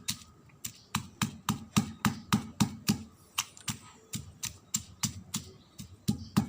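Pestle pounding boiled beef shank in a mortar: quick, regular thuds about three to four a second, with a couple of brief pauses. The meat is being pounded until its fibres come apart.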